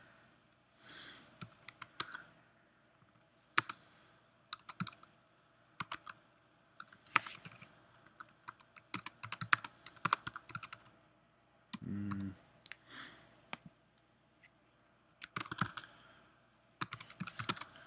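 Typing on a computer keyboard in several bursts of quick key clicks with short pauses between them, as text is typed into a web form. A little after twelve seconds there is a short low pitched sound.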